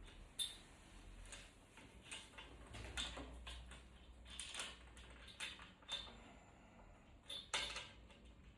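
Faint, irregular clicks and light taps of metal hardware being handled: washers and nuts being fitted onto the bolts of a steel frame by hand.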